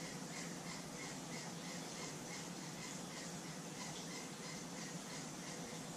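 Quiet room tone: a steady hiss with a faint chirp repeating about three times a second.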